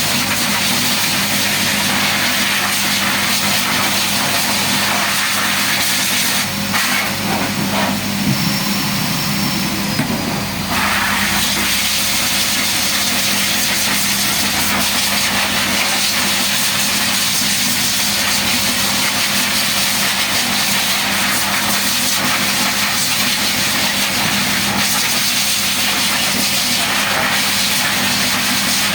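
Small electric motor running steadily with a constant hum and hiss, briefly disturbed between about six and ten seconds in.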